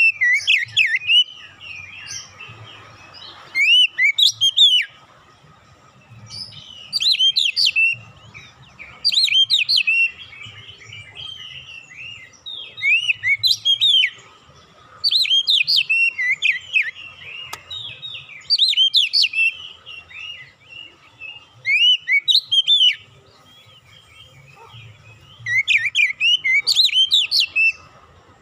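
Oriental magpie-robin singing: short loud phrases of rapid sweeping whistled notes, repeated about every three seconds, with gaps between.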